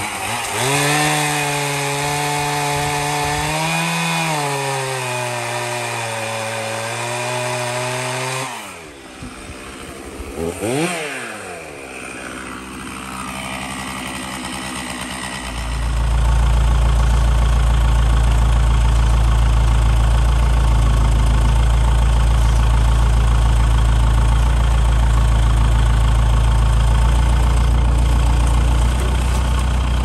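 A two-stroke chainsaw cuts through a pine trunk for about eight seconds, its pitch dipping and rising, then revs briefly and drops back. About halfway in, the Lull telehandler's diesel engine revs up and runs on, loud, low and steady.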